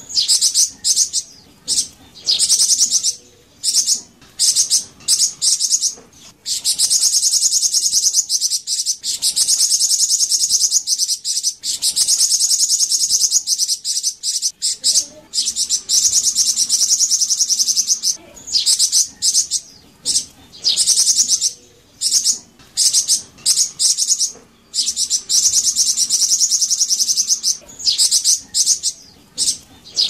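A flamboyan songbird singing very high, fast buzzy trills. The trills come in long runs of several seconds each, broken by short gaps and brief chirps.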